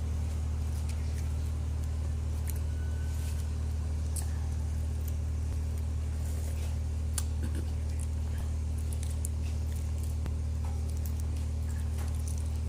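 A steady low mechanical hum, like an engine running at constant speed, with a few faint clicks over it.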